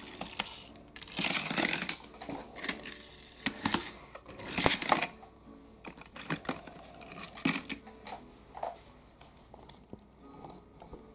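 Die-cast pullback toy car being handled and pushed along a plastic toy road mat: its wheels and metal body make short scraping rolls and a scatter of sharp clicks and knocks, which thin out toward the end.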